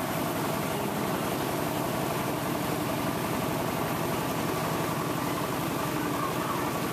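Engine of the vehicle carrying the camera running steadily at low speed while it pushes through floodwater, with water washing along its side.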